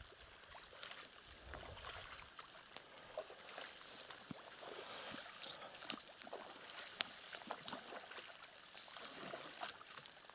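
Faint splashing and dripping of water with scattered light clicks, from a wet seine net being lifted and handled at the water's edge.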